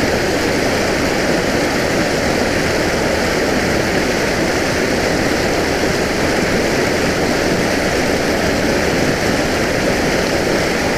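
Water rushing steadily out of a large canal spill pipe into a river: a loud, even roar of pouring water.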